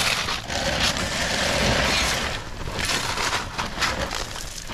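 Crushed stone gravel crunching and scraping under a shovel, in irregular short strokes, as it is worked into the hollow cells of concrete wall blocks.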